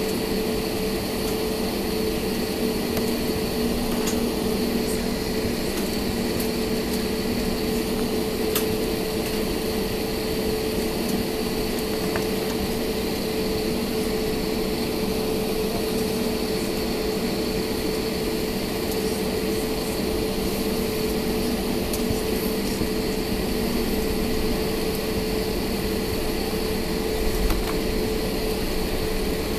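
Airbus A320neo taxiing, heard inside the passenger cabin: a steady hum of the jet engines at low taxi power with a few steady tones, and an occasional faint tick.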